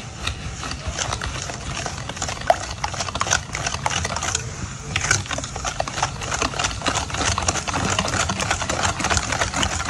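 Wire balloon whisk beating eggs into oil and sugar in a stainless steel bowl: rapid, steady clicking and scraping of the whisk wires against the metal bowl.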